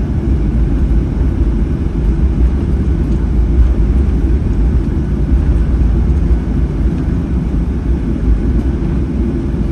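Steady low rumble of a Boeing 737-800 airliner heard inside the passenger cabin: engine and airframe noise with no change in level.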